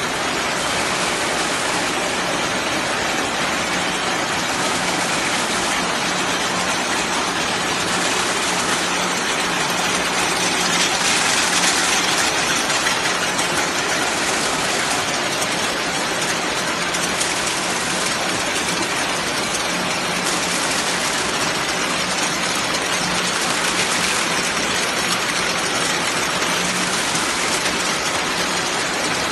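Steady running noise of a jar-filling production line: conveyor and machinery, with a low hum and a slight rise and fall about every two seconds.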